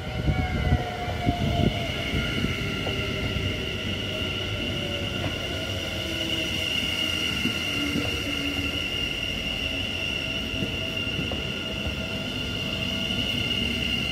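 Dutch NS electric multiple-unit passenger train running along the platform: a steady high electric whine over the rumble of wheels on the rails. A lower tone slides slowly down in the first few seconds.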